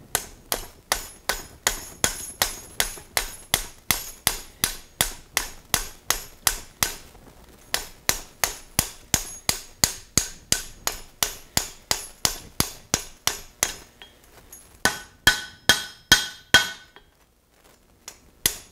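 Hand hammer striking a red-hot steel bar hooked over an anvil block, upsetting the bent end to square the corner: a steady run of blows about three a second, with a short break about seven seconds in and another about fourteen seconds in. Then a few louder, ringing blows before the hammering stops.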